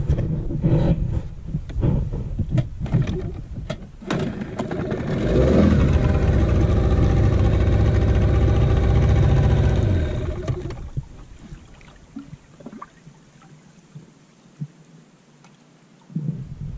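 Small boat's outboard motor running: from about five seconds in it comes up quickly to a steady hum, then dies away after about ten seconds. Before it there are irregular knocks and rumbling.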